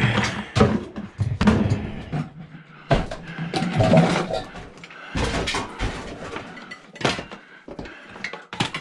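Pieces of scrap copper line clattering and knocking together as they are handled, with many sharp irregular knocks.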